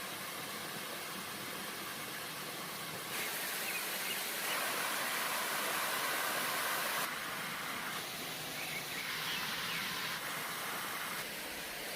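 Steady rushing of stream water and a waterfall. It gets louder and brighter from about three seconds in to about seven seconds, then changes abruptly in level a few more times.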